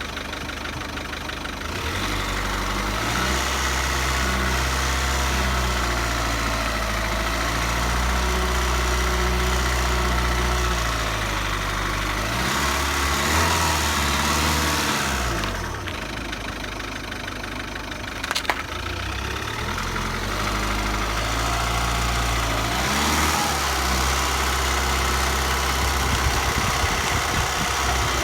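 Ford engine running with a rattle. Its speed rises and falls a couple of times, dropping to a lower, quieter run through the middle. There is a single sharp click partway through.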